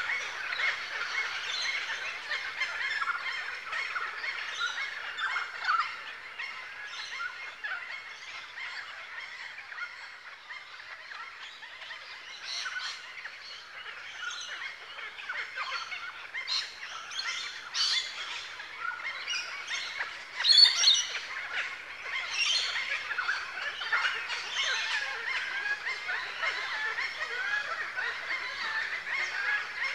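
Many birds chattering and calling at once, a dense continuous din of short calls with sharper ones standing out. The loudest call comes about two-thirds of the way through.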